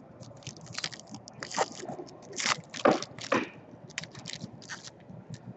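Trading-card pack wrapper being torn open and crumpled by hand: a run of sharp crinkling crackles, loudest in the middle.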